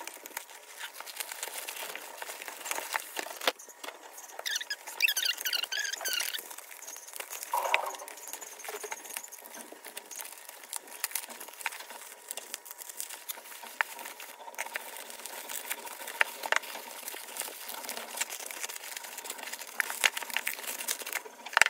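Plastic packaging being handled and pulled open in sped-up playback: a poly mailer bag and bubble wrap crinkling and rustling, with many small crackles and taps. A brief high warbling sound comes about five seconds in.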